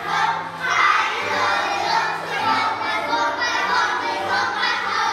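A class of young children singing together in unison, loud and close to shouting, over a musical accompaniment with a steady bass line that steps between notes.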